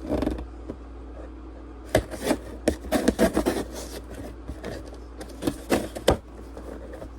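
Cardboard shipping package being opened and handled by hand: irregular rubbing, scraping and knocking of the packaging, busiest around the middle, with another flurry near the end.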